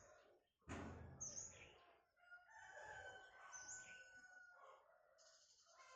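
A faint rooster crow, one long drawn-out call, with small birds chirping high above it. A short burst of noise comes about a second in.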